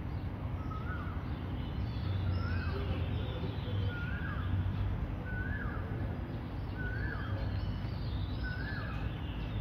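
A bird calling over and over: the same short chirp repeated about every second and a quarter, seven times, over a steady low rumble.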